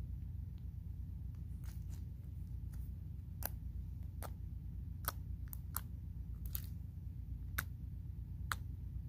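Slime being pressed and poked by hand on a hard floor, giving a scatter of about eight sharp clicks and pops from about a third of the way in to near the end, over a steady low hum.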